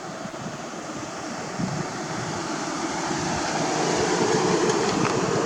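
A car approaching, its engine and tyre noise growing steadily louder, over wind buffeting the microphone.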